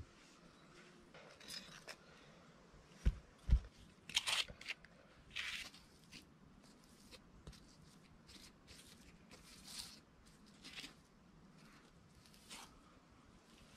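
Bricks being set by hand on sandy ground with clay mortar: two dull knocks about half a second apart, then scattered gritty scraping and rustling as the bricks are shifted and the mortar and sand worked.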